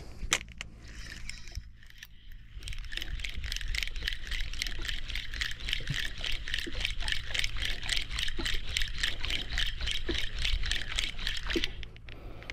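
Spinning reel cranked fast on the retrieve of a micro jig: a rapid, even ticking of the rotor, about five turns a second, starting about three seconds in and stopping shortly before the end.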